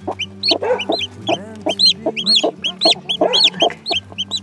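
Newly hatched chick peeping loudly and rapidly, short rise-and-fall peeps several a second, with lower hen clucks mixed in.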